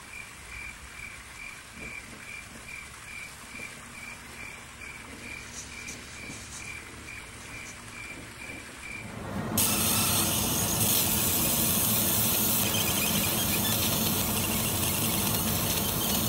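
A cricket chirping steadily at night, an even pulse of about three chirps a second over faint background hiss. About ten seconds in, a much louder, dense, noisy sound cuts in and continues.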